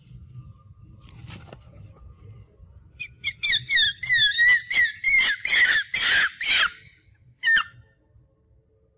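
Macaque screaming: a rapid run of about ten loud, shrill squeals that waver in pitch, starting about three seconds in, with one last squeal shortly after.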